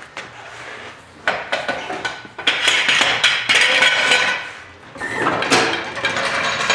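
Metal tools and parts clanking and rattling in a run of irregular clatter that starts about a second in, eases briefly near five seconds, picks up again, then ends abruptly.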